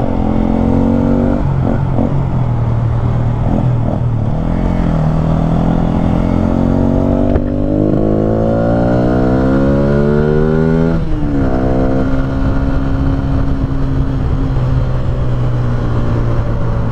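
Yamaha Y15ZR's 150 cc single-cylinder four-stroke engine under way, accelerating: its pitch climbs, drops sharply about seven seconds in as it shifts up, climbs again, falls once more about eleven seconds in, then holds steady at cruising speed.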